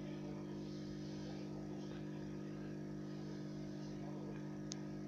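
A steady low hum of a few fixed tones, unchanging, with one faint click near the end.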